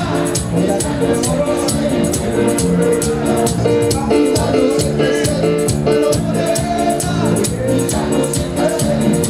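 Live band music at a steady dance tempo: sustained chords over a quick, even beat of shaker-like percussion.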